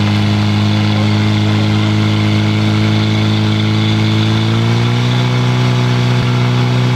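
Portable fire pump engine running flat out while pumping water to the targets, a loud steady drone whose pitch rises a little about four to five seconds in and then holds.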